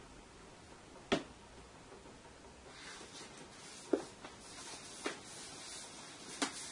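Faint swishing of a Chinese calligraphy brush drawn across paper, starting about three seconds in. Four light taps come through at intervals, the loudest about four seconds in.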